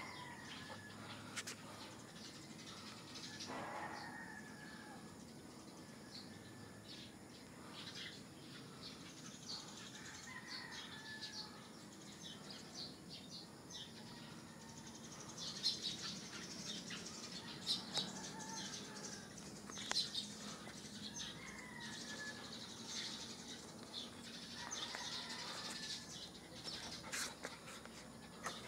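Birds chirping repeatedly, with occasional short gliding calls; the chirping grows busier and louder in the second half.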